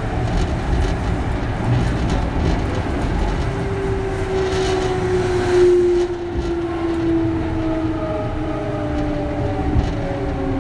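Kintetsu 3200 series electric train running, heard inside a motor car: the growl of its early Mitsubishi GTO VVVF inverter and traction motors, whose tones fall steadily in pitch from about a third of the way in as the train slows, over a constant rumble of wheels on track. A brief louder rush comes a little past halfway.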